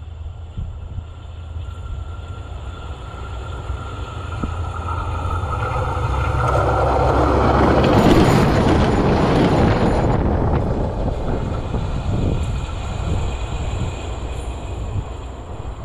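Bombardier Talent diesel multiple unit approaching and passing right over a rail-level camera: a rising rail hum and a ringing tone build up, the wheels and train pass loudly for about four seconds around the middle, and then the sound dies away.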